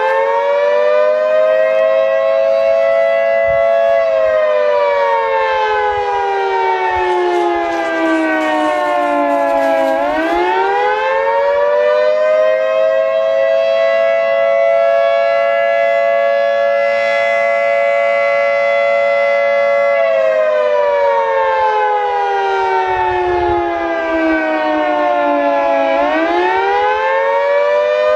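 Federal Signal 2T22B dual-tone siren sounding the attack signal: a loud two-note chord that holds steady for several seconds, then slides down in pitch over about six seconds before winding quickly back up. This happens twice.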